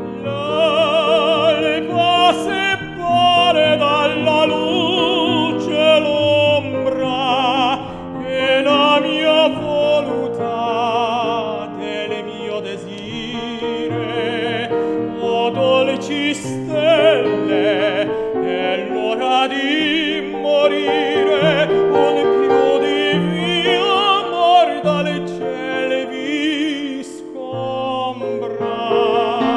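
Operatic tenor singing an Italian art song with a wide vibrato, accompanied by a grand piano.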